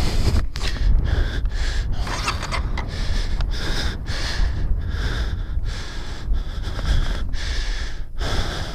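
A man panting hard in quick, heavy breaths from the strain of hauling a heavy dirt bike by hand, with a low rumble underneath.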